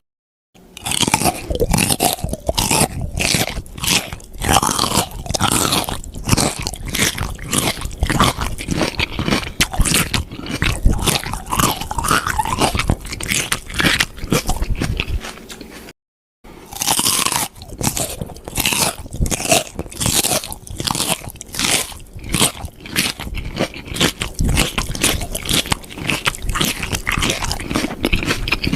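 Crunchy food being bitten and chewed in quick, irregular crunches, several a second, in two stretches split by a brief silence about sixteen seconds in.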